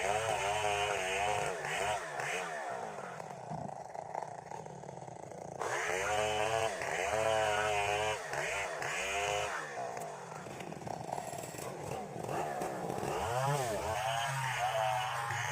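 Two-stroke chainsaw cutting through timber, its engine pitch repeatedly dipping and climbing again as the chain bites into the wood and frees up.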